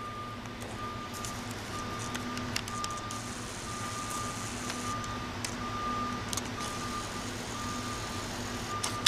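A vehicle's reversing alarm beeping about once a second, with an engine running steadily underneath.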